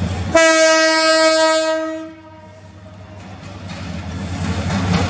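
Diesel locomotive's air horn sounding one long blast of about a second and a half on a single steady note. The locomotive's engine rumble then comes back in, growing louder as the train approaches.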